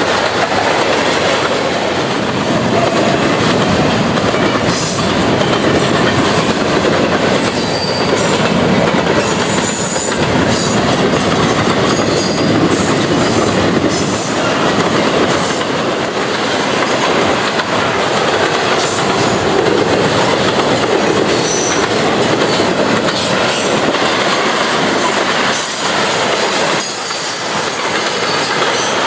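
A CSX double-stack intermodal freight train's container-loaded well cars rolling past. It makes a loud, steady rumble and rattle of steel wheels on rail, with brief high-pitched wheel squeals now and then.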